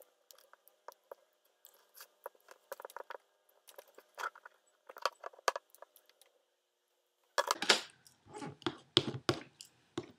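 Handling noise of hands working an adhesive vinyl skin onto the back of a smartphone: scattered small clicks, taps and rubs. It becomes louder and busier from about seven seconds in, with heavier knocks and scrapes against the wooden table.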